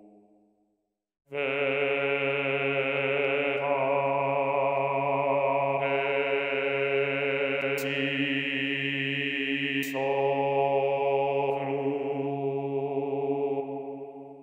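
Cartoon voices holding long sung notes together, a low drone under higher notes with a wavering vibrato, the chord shifting a few times. Two sharp clicks about two seconds apart come midway, and the sound fades away at the end.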